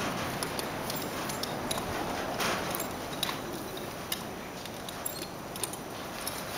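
Rustling, with light metal clinks of a bridle's bit and buckles, as the bridle is slipped off over a young horse's ears.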